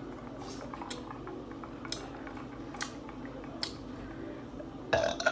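Eating sounds: a handful of short, sharp wet smacks and clicks about a second apart, then a loud burp breaks out near the end.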